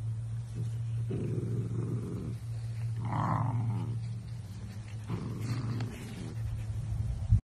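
Dachshund puppy growling in three bursts as it plays, over a steady low hum.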